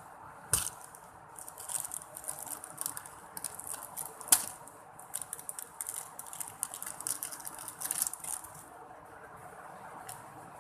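Slime being squeezed and worked by hand, giving a quick run of small crackling pops and clicks with a couple of sharper pops. It goes quiet near the end.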